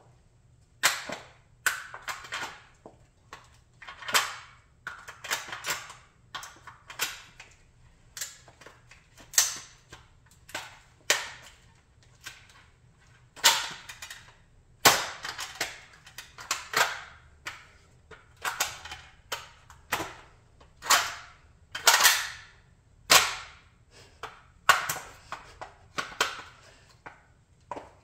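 A Chrysler 300B model car being crushed under a block-heeled sandal. It gives off a run of sharp cracks, snaps and crunches at an irregular pace of about one or two a second as the heel presses and stamps down and parts give way.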